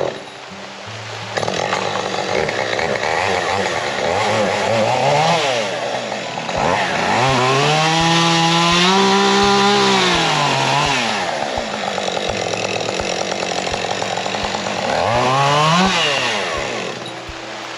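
Chainsaw cutting up tree limbs. The engine revs briefly, then runs at high speed for about four seconds midway, then revs up again near the end, dropping back to a lower speed in between.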